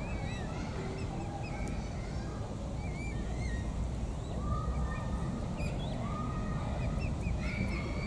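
Mute swan cygnets peeping: many short, wavering high whistles scattered throughout, with a couple of longer, lower whistles in the middle, over a steady low rumble.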